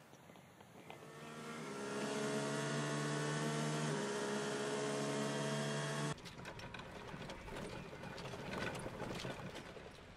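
A steady hum with several pitches swells in and cuts off abruptly about six seconds in. It gives way to a golf cart driving along a paved path, its body and fittings rattling.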